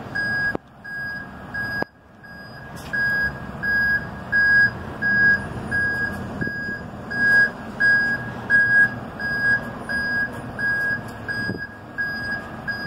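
Backup alarm of a motorhome-based mobile clinic beeping steadily, about one and a half beeps a second, as it reverses, over the low running of its engine. The sound cuts out briefly twice in the first two seconds.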